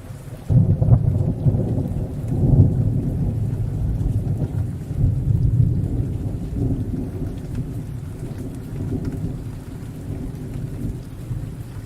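Rain falling steadily with a long rolling thunder rumble. The rumble swells suddenly about half a second in, peaks twice in the first few seconds, then slowly dies away.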